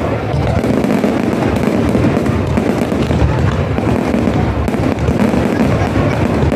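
Fireworks display: a dense, continuous barrage of bangs and crackles, with no single blast standing out above the rest.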